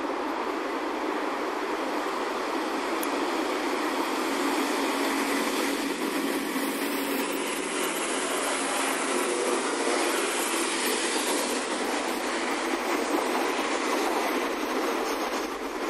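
First Great Western Class 165 diesel multiple unit passing close by, its engine and wheels on the rails growing louder over the first few seconds and staying loud until a dip at the very end.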